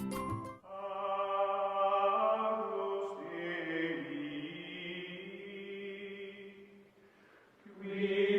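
Background music of long, held, chant-like tones. One fades out about seven seconds in, and another begins shortly before the end.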